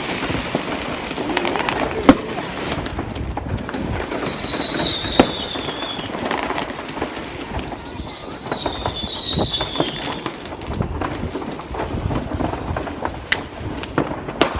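New Year's Eve fireworks going off: a constant crackle of many bangs, with sharper loud bangs about two seconds in, about five seconds in and near the end. Two long falling whistles sound about four and about eight seconds in.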